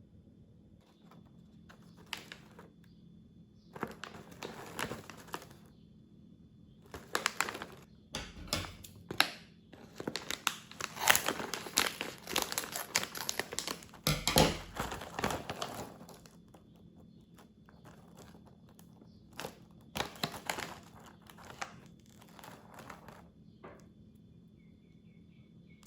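A plastic snack packet crinkling and being torn open, in irregular bursts that are busiest from about eight to sixteen seconds in.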